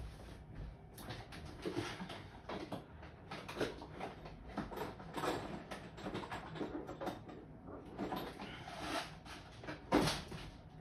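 Scattered small clicks, taps and knocks of hands handling small hard objects, with a sharper knock about ten seconds in.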